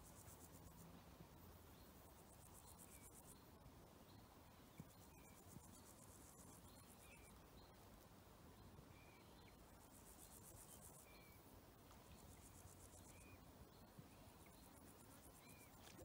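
Faint natural ambience: insects stridulating in high-pitched, finely pulsed bouts lasting one to three seconds, with a short call repeated about every second or two, over a soft low rumble.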